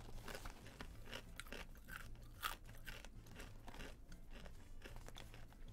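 A person chewing crunchy coconut flour tortilla chips: faint, irregular crunches.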